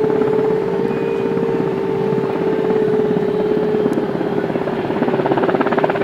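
JASDF UH-60J rescue helicopter hovering close by: rapid rotor-blade chop over a steady whine from its turbines and transmission, with the chop growing stronger near the end.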